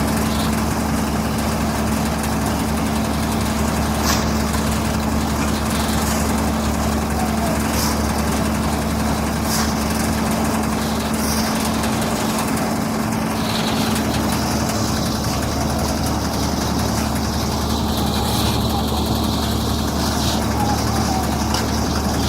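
An engine running steadily at idle, with a constant low hum and a few faint clicks or knocks.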